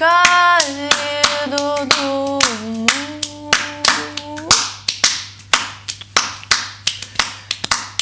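A woman's voice singing long held notes a cappella over a quick, even rhythm of hand claps. The singing stops about halfway through and the clapping carries on alone.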